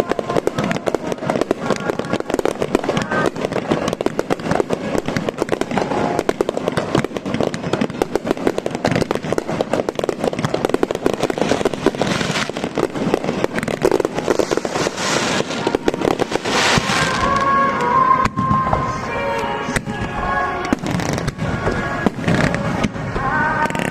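Fireworks display in a dense barrage: rapid, overlapping bursts and crackling without a break. From about two-thirds of the way in, pitched voices or music also rise above the bursts.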